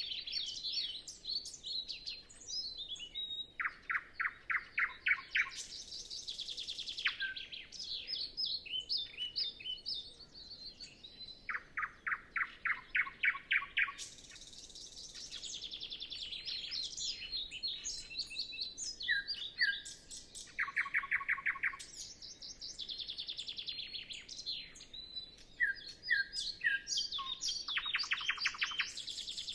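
Nightingale singing: varied phrases of fast repeated notes, chattering trills and short clear whistles, separated by brief pauses.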